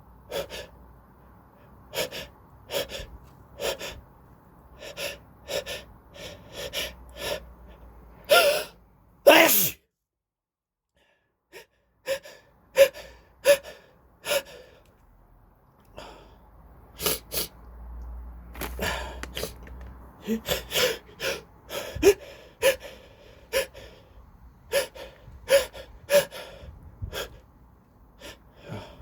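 A person with a cold sneezing over and over, in runs of short, sharp sneezes about a second or less apart. The loudest is a pair about a third of the way in, and after them the sound drops out completely for about a second and a half.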